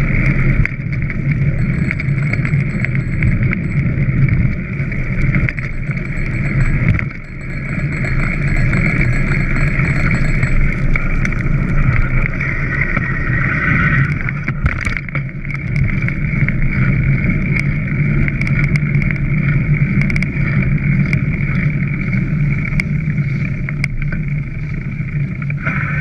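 Steady rush of wind and wet-tyre noise from a camera mounted on a bicycle being ridden along a rain-soaked road, dipping briefly about seven seconds in.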